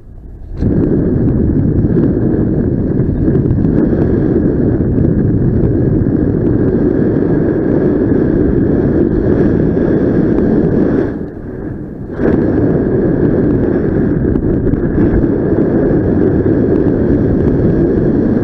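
Wind buffeting the microphone of a paraglider in flight: a loud, steady low rush that drops away for about a second two-thirds of the way in, then comes back.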